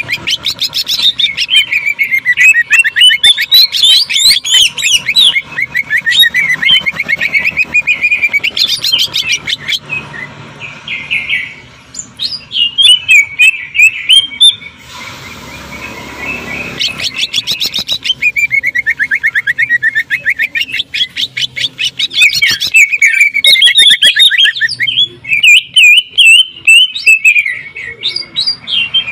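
Cucak ijo (green leafbird) singing in long runs of very fast, rattling repeated notes that sound like a sewing machine, mixed with warbled phrases. There is a short pause about halfway through.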